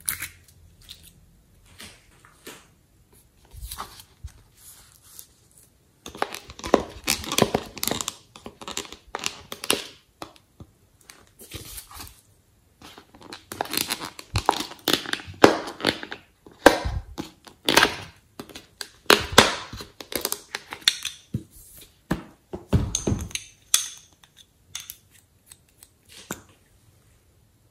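Hard plastic cosmetic packaging and a clear plastic mold handled up close: irregular crinkling, scraping and clicking as lip gloss tubes are worked out of their plastic box. The busiest stretches are about 6 to 10 seconds in and from about 13 to 24 seconds in.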